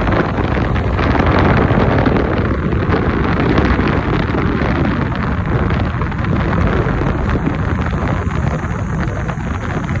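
Wind rushing and buffeting over a phone microphone inside a moving car, over the low rumble of the car driving on a wet road. Loud and steady, flickering in level without a break.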